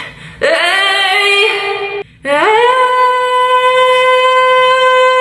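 A woman singing long held notes without words. A note slides up and is held, breaks off briefly about two seconds in, then a high note slides up and is held steady.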